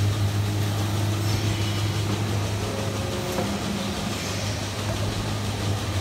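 Milking-shed machinery of a rotary milking parlour running with a steady low hum.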